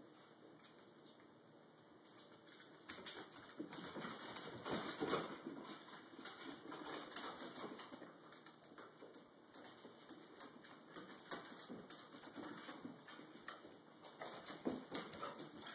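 Cavalier King Charles Spaniels' claws clicking and scrabbling on a tiled floor as the dogs wrestle, with scuffling of their bodies. Quieter for the first few seconds, then busy from about three seconds in.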